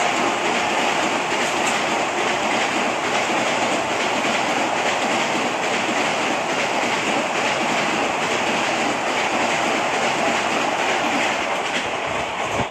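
Vande Bharat Express train rushing past at speed close to the platform: a steady, loud rush of wheel and air noise.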